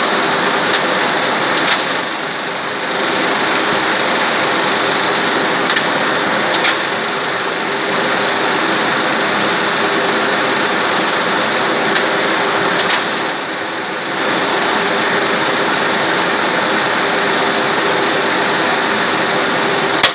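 1И140 automatic lathe running steadily through its machining cycle, a continuous mechanical drone with a hiss over it. There are a few sharp clicks, and the noise drops briefly twice.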